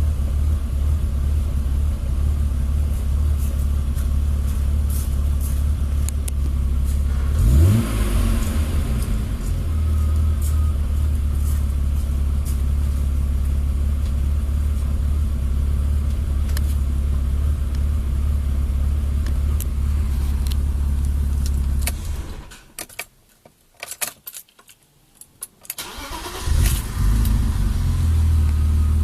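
BMW E36 325i's 2.5-litre inline-six idling steadily, with a brief rise in revs about seven or eight seconds in. Near the end the engine sound drops away for about four seconds, then comes back. The car has a slight lumpy idle that the owner traced to a failing O2 sensor.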